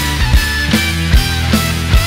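Background music with a steady drum beat of about two and a half hits a second over sustained low notes.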